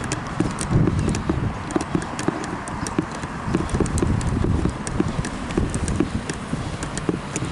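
Walking footsteps on a concrete sidewalk, about two a second, with the knocking and rubbing of a camcorder carried in a cardboard vest holder.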